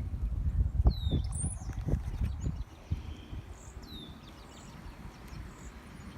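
Wind buffeting the phone microphone in gusts, dropping away about two and a half seconds in. Short downward-sliding bird chirps come and go over it, about one a second or so apart at first, then every few seconds.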